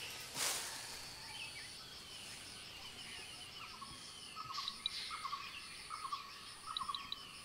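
Tropical forest ambience: birds calling and insects droning. A high insect-like note pulses a little more than once a second, and a series of short, quick chirping calls repeats through the second half.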